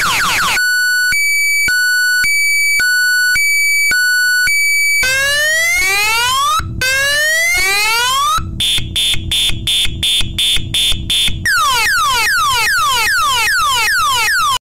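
DNI4054 24 V piezoelectric electronic siren cycling through its tone patterns. First comes a hi-lo two-tone alternation, then two long rising wails, then a fast-pulsed high beep, then rapid repeated falling sweeps. The sound cuts off suddenly near the end.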